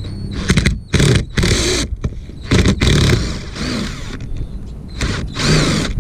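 Several short bursts from a small motor-driven hand tool working on bolts, its pitch rising and falling with each run, separated by brief pauses.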